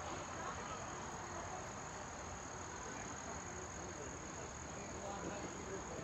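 Insects, crickets by their sound, trilling in a steady, unbroken high-pitched drone over faint outdoor background noise.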